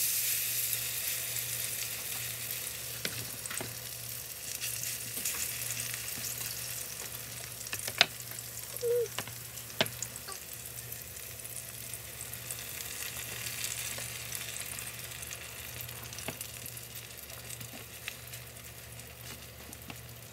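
Green onions sizzling in a hot frying pan, a steady sizzle that eases off slowly, with a few light clicks of handling in the pan.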